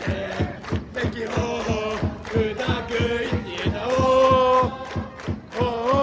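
A baseball stadium cheering section performing a fight song: a crowd chanting and singing in unison over a steady drum beat of about four strikes a second, with held melody notes.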